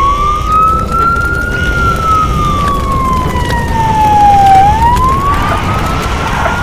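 Emergency-vehicle siren wailing slowly: it climbs, sinks over about three seconds, then climbs again near the end, over a low vehicle rumble.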